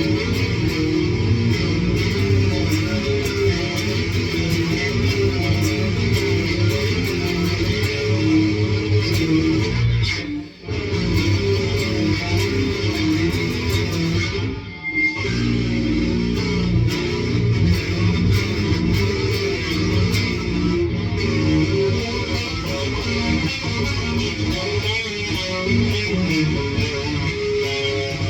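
Electric guitar played through an amplifier with an overdrive pedal stacked on a distortion pedal and a chorus pedal, giving a heavy, dirty tone. The playing is continuous, with two brief breaks about ten and fifteen seconds in.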